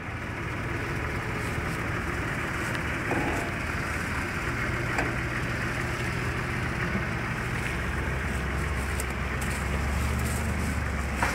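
Engine of a V6 4x4 SUV running at low speed as it crawls along an overgrown track, with a steady hiss over it. The engine hum grows louder in the last few seconds as the vehicle moves past.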